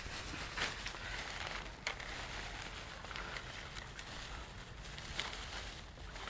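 Outdoor background noise with a low steady rumble and a few light clicks, about half a second, two seconds and five seconds in.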